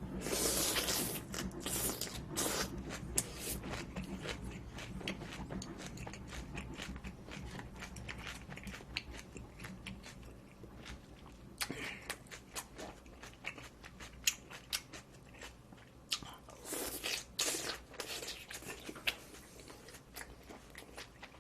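A person chewing and biting food close to the microphone: a run of small wet mouth clicks, with a few louder crunchy bites near the start and again about two-thirds of the way through.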